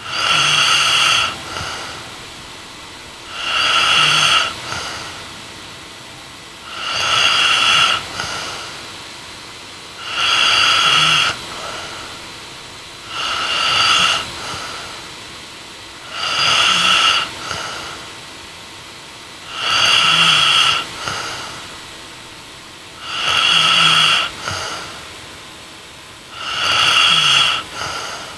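A woman snoring in her sleep: nine loud snores at an even pace, about one every three seconds. Each lasts about a second and is followed by a softer trailing breath.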